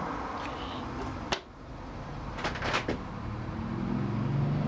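A few sharp clicks from handling the key-cutting machine and its tablet as they are switched on, the loudest about a second in and a quick cluster a little later. A low hum builds near the end.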